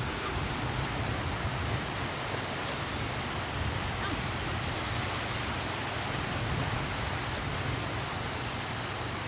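Ocean surf washing steadily: an even rushing noise with a low rumble underneath.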